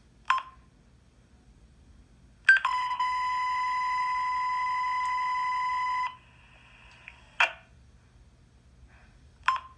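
Police dispatch radio: a short burst of squelch static, then one steady alert tone over hiss lasting about three and a half seconds, then two more short squelch bursts near the end.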